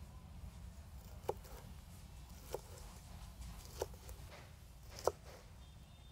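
Large kitchen knife chopping red bell pepper on a plastic cutting board: four slow, evenly spaced chops about a second and a quarter apart, the last the loudest, over a low steady background rumble.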